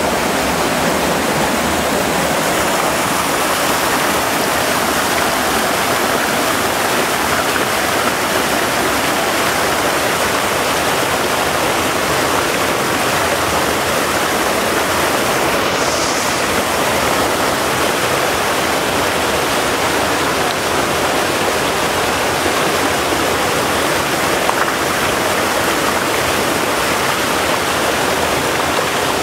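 Steady rushing, splashing water, loud and unbroken, like a stream or small waterfall pouring.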